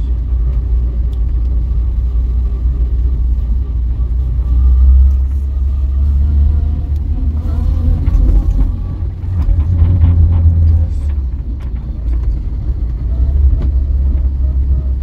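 Vauxhall Viva being driven, heard from inside the cabin: a steady low engine and road rumble that swells about five seconds in and again around ten seconds. The car is on a test drive after its carburettor has been adjusted.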